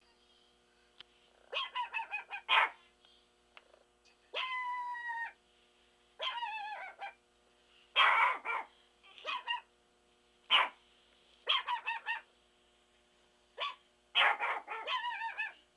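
A long-haired Chihuahua barking in repeated bursts of quick, high yips. Between the bursts come a few longer, wavering whining cries.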